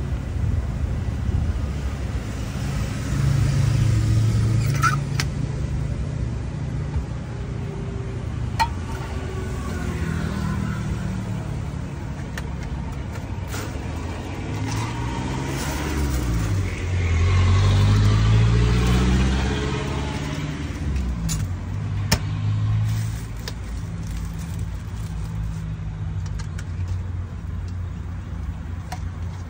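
Motor vehicle engines running with a steady low rumble, one passing loudest about two-thirds of the way through as its pitch slides. Scattered clinks and knocks come from cups and metal espresso equipment being handled.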